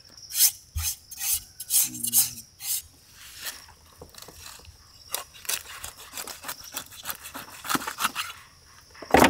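A big knife scraping along the skin of a large streaked Spanish mackerel (vanjaram) in quick, irregular strokes, with one loud scrape near the end.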